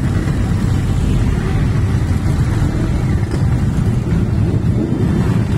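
Engines of a long column of motorcycles, cruisers and touring bikes among them, riding slowly past close by: a steady, dense low rumble.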